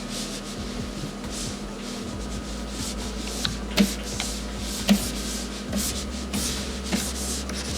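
Drawing strokes: a drawing tool scratching and rubbing across the drawing surface in repeated short passes, with a few light ticks.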